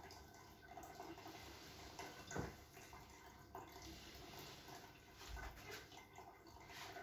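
Near-silent room tone with faint rustling and small clicks from hands working a patient's neck on a treatment table. One brief, louder sound comes about two and a half seconds in.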